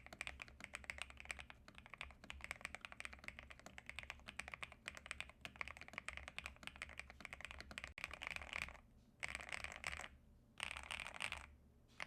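Ajazz AK820 mechanical keyboard being typed on rapidly, a dense stream of keystrokes. From about eight seconds in, the typing comes in short fast bursts separated by brief pauses.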